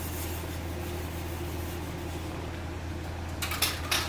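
A steady low hum, then from about three and a half seconds in a quick run of clicks and rattles as objects on a cluttered workbench are handled.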